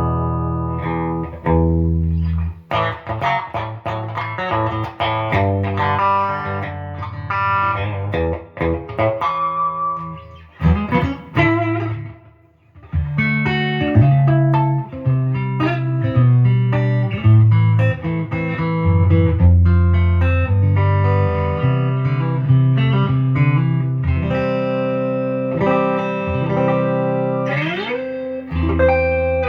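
Gibson Les Paul 50s Standard electric guitar with P-90 pickups being played: a run of picked notes and chords. There is a short break about twelve seconds in and an upward slide near the end.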